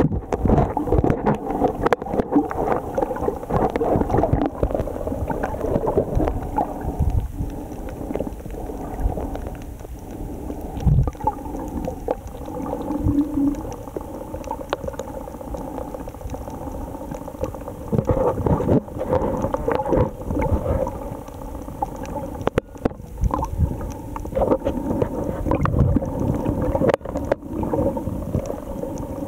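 Muffled underwater sound of water moving against a waterproof camera while snorkeling: an uneven low rumble and swishing, with a faint steady hum underneath.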